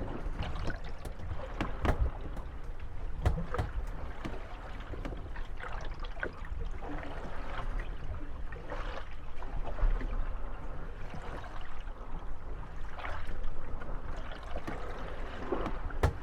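Moored Venetian gondolas rocking on small waves: water lapping and sloshing against the hulls, with scattered hollow knocks as the boats bump one another and creaks from the rocking hulls.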